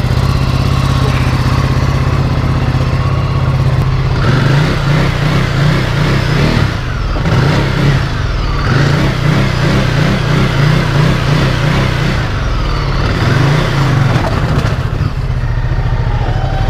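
Ducati Multistrada 1260's V-twin engine idling steadily, then pulling away at low speed over a rough dirt lot about four seconds in, its pitch rising and falling as the throttle opens and closes.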